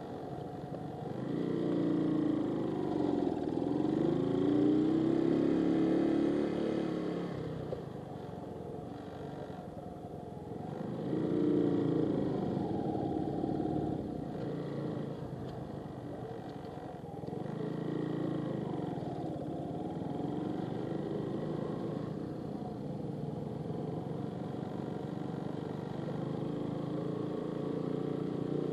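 Motorcycle engine running in second gear, its pitch rising and falling several times as the throttle is opened and eased off at slow riding speed.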